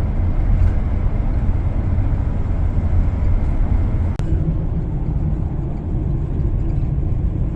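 A car driving, heard from inside the cabin: a steady low rumble of engine and tyre noise. About four seconds in there is a single sharp click, after which a faint steady hum rides over the rumble.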